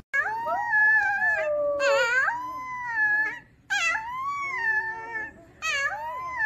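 Grey puppy howling: about four long, wavering howls in a row with short breaks, the pitch sliding up and down within each.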